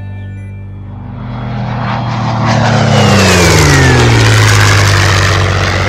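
An engine passes by. It grows louder to a peak about three to four seconds in, and its pitch drops as it goes past.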